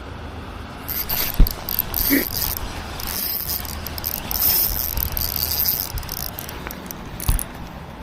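Fishing reel being cranked, its gears whirring and clicking steadily for most of the stretch. A sharp knock comes about a second and a half in.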